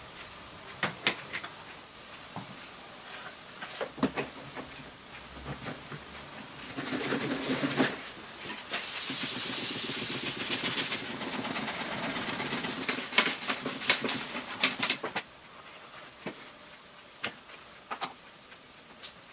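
Hands-on handling noise: scattered clicks and knocks, with a rushing hiss and rattling for several seconds in the middle that cuts off suddenly.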